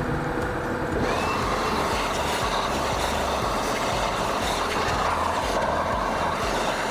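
Shop vacuum sucking up cast-iron chips beside a Bridgeport milling machine whose spindle is running. The vacuum comes up to speed with a rising whine about a second in, then runs steadily.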